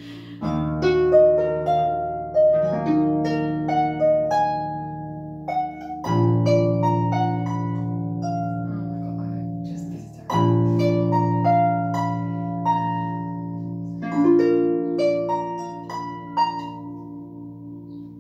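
Concert harp playing a solo piece: single plucked notes in the middle and upper strings over low bass notes that ring on. Fresh bass notes come in about every four seconds.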